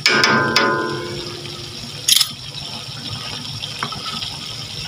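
Pork belly simmering in sauce in a stainless steel wok, a steady bubbling hiss. Near the start a utensil knocks twice against the wok, which rings briefly, and there is another short clatter about two seconds in.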